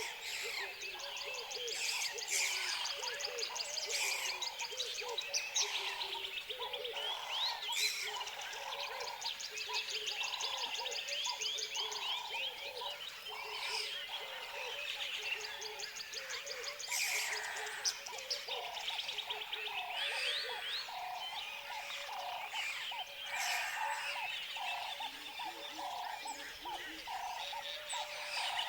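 Tropical forest ambience: a dense, continuous chorus of birds chirping and trilling over frogs calling in a steady pulsing rhythm.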